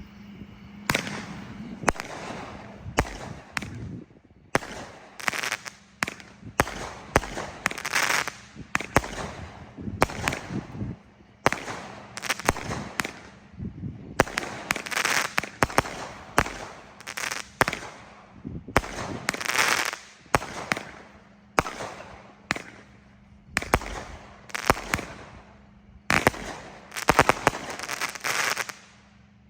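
A 200-gram, 25-shot consumer firework cake (Super Fireworks Color Burst) firing shot after shot at about one a second. Each shot gives a sharp bang followed by a crackling hiss. It stops about a second before the end.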